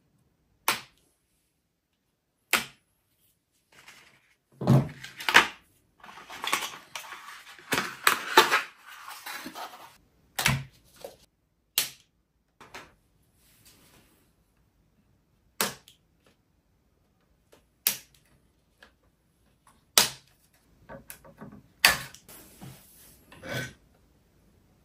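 Side cutters snipping through plastic cable ties, each cut a sharp single snap, the snaps a few seconds apart, as the shipping restraints come off a new 3D printer. Between the snaps there is rustling and knocking as packaging is handled, heaviest for a few seconds about a quarter of the way in and again near the end.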